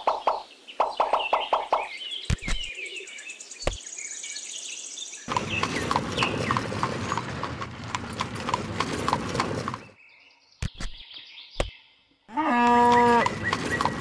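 Farmyard animal sounds: small chirps and quick pulses early on, a dense clattering stretch in the middle, and one loud animal call that rises and falls in pitch about twelve seconds in.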